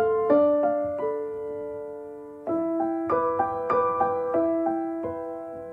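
Background piano music: gentle single notes and chords, each struck and then fading.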